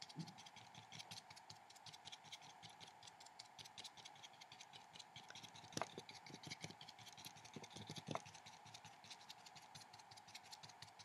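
Faint dabbing and scratching of a paintbrush on watercolour paper: many small quick taps, with two sharper clicks about six and eight seconds in, over a faint steady hum.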